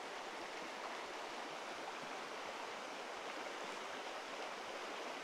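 Steady, even rush of a small rocky river's water flowing over stones.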